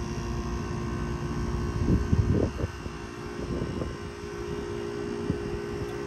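Outdoor air-conditioning condensing unit running with a steady mechanical hum, its condenser fan held off by the low-ambient fan cycle switch while head pressure climbs toward the 400 PSI cut-in. A few louder low rumbles come about two seconds in and again about three and a half seconds in.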